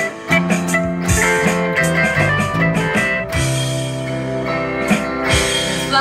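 Live band playing an instrumental passage with no singing: guitars over a bass guitar line.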